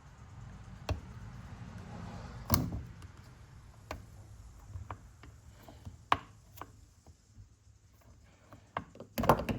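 Irregular small clicks and taps of a tool working on the dishwasher drain solenoid's shaft as the old shaft gasket is pried out, with a sharper cluster near the end. A low hum fades out in the first few seconds.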